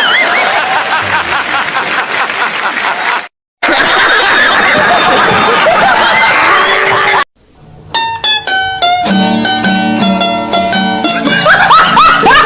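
A run of short sound-effect clips cut one after another with brief silences between: two stretches of many voices at once, like a crowd laughing or clamouring, then from about eight seconds in a plucked-string tune with a bouncy, repeating rhythm.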